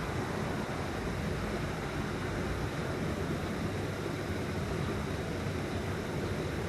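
Steady outdoor rushing noise, even throughout, with no distinct calls, splashes or knocks standing out.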